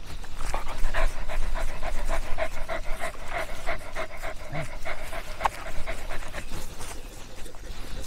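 A dog panting quickly and rhythmically, about four pants a second, starting about half a second in and fading out around six and a half seconds in, over a steady low rumble.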